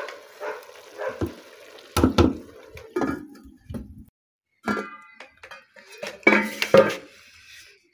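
Aluminium cooking pot and lid clanking: a string of separate knocks and scrapes, one with a short metallic ring about halfway through.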